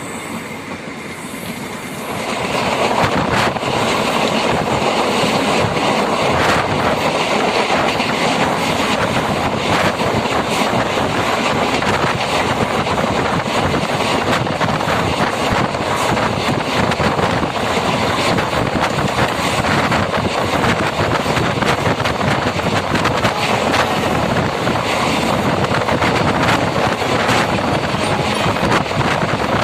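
Electric multiple-unit (MEMU) passenger train running on the track, heard from on board: a steady rumble and rattle with a scatter of wheel clicks over the rail joints. It grows louder about two seconds in and stays at that level.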